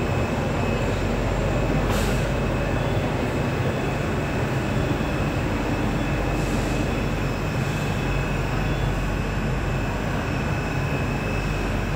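Budapest M3 metro train standing at the platform, its onboard equipment running with a steady drone and a steady high-pitched whine.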